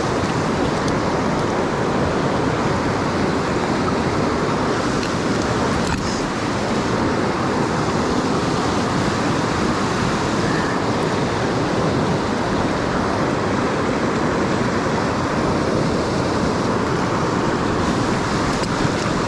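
Steady rush of fast-flowing creek water running high.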